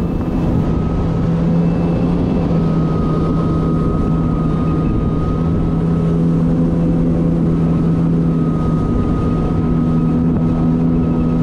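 Kawasaki Ultra 310LX jet ski's supercharged four-cylinder engine running steadily at a cruise of about 55 km/h, a constant hum with a thin steady whine above it, over a rush of water and wind.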